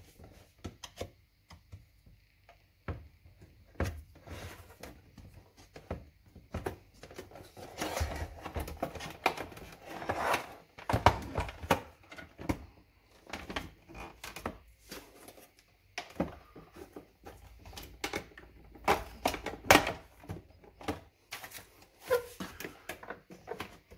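Plastic housing of a Philips Senseo coffee machine being handled and pried at to free the panels held by plastic clips: repeated sharp clicks and knocks of hard plastic, with denser scraping and rattling about eight to twelve seconds in.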